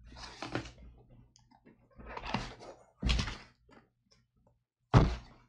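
Small cardboard box being handled on a cutting mat: scraping and rustling as it is slid and turned over, then two dull thunks, about three and five seconds in.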